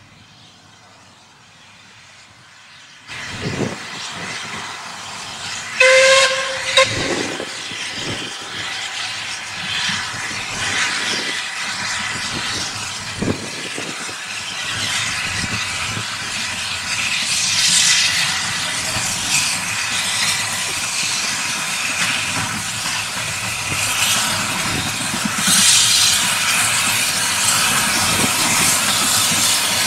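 Caledonian Railway 0-4-4T steam tank engine No. 419 working a passenger train: a short whistle blast about six seconds in, then a steady loud hiss of steam from the working locomotive, growing louder as it draws close.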